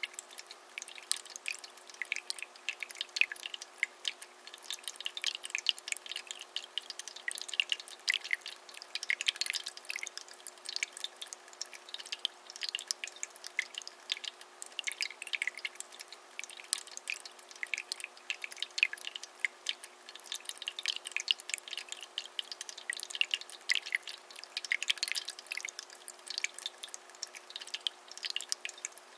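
Water trickling and dripping down the tiers of a small polyresin three-tier cascading tabletop fountain: a soft, steady run of irregular small splashes, over a faint steady low hum.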